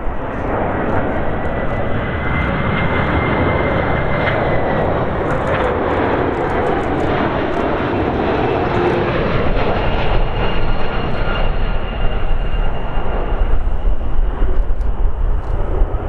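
Boeing 767's twin jet engines on final approach as the airliner passes close by: a steady roar with a thin, high whine over it.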